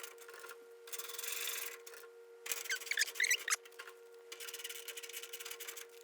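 Roper electric dryer running after a successful start: a steady hum with a rasping, rubbing noise from the tumbling drum, and a few short squeaks about halfway through.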